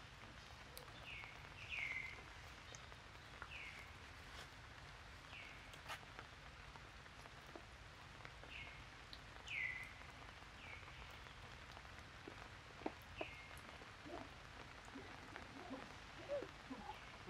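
An animal's short, high, falling chirp, repeated about ten times and often in pairs, over a faint steady background with scattered small clicks.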